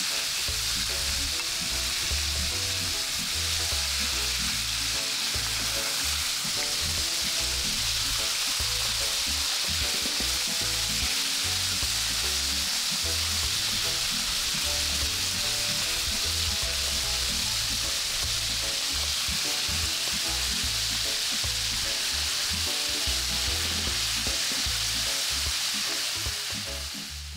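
Flour-coated chicken pieces deep-frying in hot oil: a steady, dense sizzle that breaks off at the very end.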